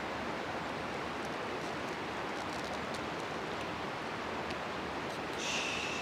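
Steady outdoor hiss with a few faint ticks, and a brief high-pitched call near the end.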